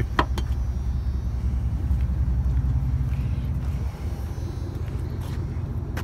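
Pickup truck's engine running with a steady low rumble, with a few faint clicks over it.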